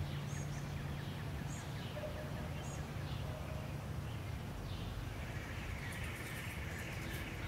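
Outdoor ambience: a steady low hum, with a few faint, short, high bird chirps in the first few seconds and a buzzing trill in the last couple of seconds.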